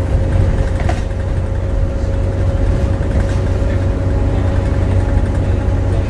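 Volvo B7TL double-decker bus's six-cylinder diesel running steadily on the move, heard from the upper deck: a deep engine rumble with a steady high whine over it.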